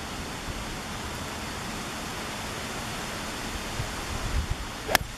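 Steady outdoor hiss, then about five seconds in a single sharp click of a 4-iron striking a golf ball off the tee.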